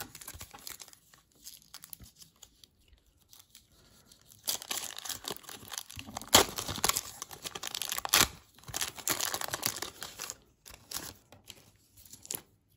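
A pack of 1991 Score football cards being torn open: after a few seconds of faint handling, the wrapper crinkles and crackles for several seconds, with two sharp rips in the middle.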